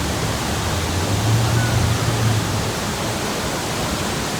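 Roar of the Iguazu Falls: a steady, dense rush of falling water. A low hum rises under it for about two seconds, starting about half a second in.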